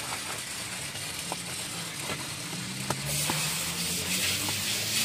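Hand scrubbing soap foam over a car's rubber footwell floor: a wet, fizzing rubbing sound with small clicks, a little louder from about three seconds in. A faint low steady hum runs underneath.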